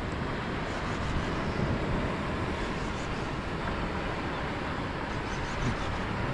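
Steady rushing noise of wind and water at sea, heard on the microphone of a kayak angler's camera.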